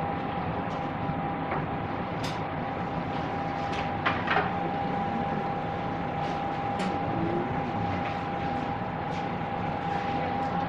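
Steady room noise of the restaurant with a constant high hum running through it, scattered faint ticks, and a couple of brief clinks about four seconds in.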